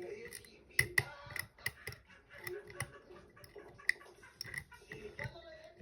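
Pick working the pins inside a Paclock 90A Pro padlock: an irregular series of light metallic clicks and taps, several with a brief high ring, as pins are lifted and set one by one.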